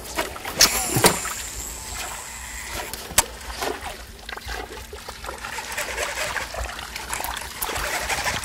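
Water splashing and trickling as a surface lure is jerked across calm water, with a few sharp clicks.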